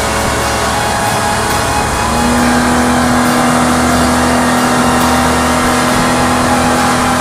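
Speedboat's outboard motor running steadily at speed, over the rush of water and wind. A steady low hum joins about two seconds in.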